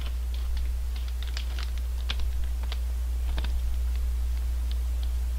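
Irregular crinkles and ticks of a plastic snack bag being handled and turned over, over a steady low electrical hum.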